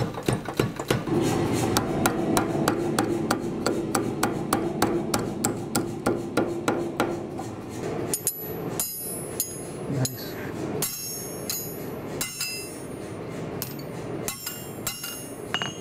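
A power hammer pounding a hot steel blade in rapid, even strokes. From about eight seconds in, a hand hammer strikes the blade on an anvil in slower, irregular blows, each leaving a high ring.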